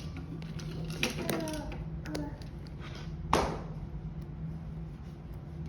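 A few sharp clicks and taps over a steady low hum, the loudest about three and a half seconds in and another at the very end, with brief faint voices in the background.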